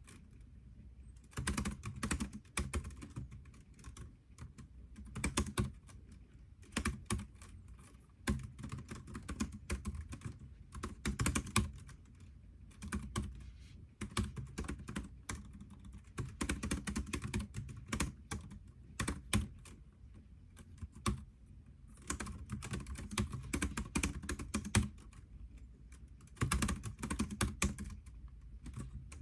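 Typing on a computer keyboard: bursts of rapid keystrokes, each run lasting a second or two, with short pauses between runs.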